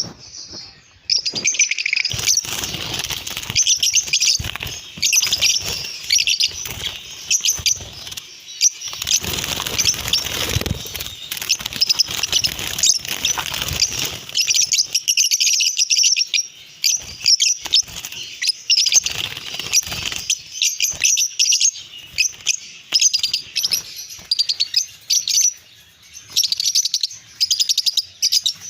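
A flock of caged lovebirds chattering with dense, continuous high chirps, with some rustling and knocking in the first half.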